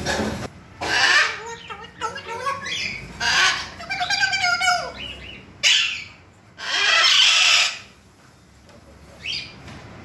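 African grey parrot vocalising: a run of loud, harsh squawks with warbling pitched calls between them, going quieter near the end.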